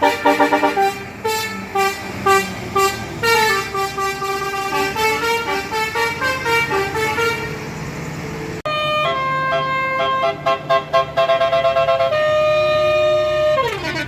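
Bus 'telolet' multi-tone air horn playing melodic tunes: a run of quick short notes, then about halfway through a switch to longer held chords, ending in a falling siren-like glide.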